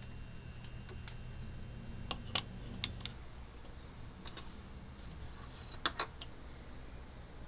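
Small metal and plastic turntable parts clicking and tapping together and on the workbench as they are handled and fitted: a scattering of light, sharp clicks, with two close together about six seconds in, over a steady low hum.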